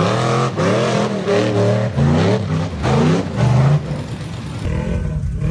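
UTV engine revving in a quick series of rising bursts, about six in a row, then easing off to a lower, rumbling run near the end.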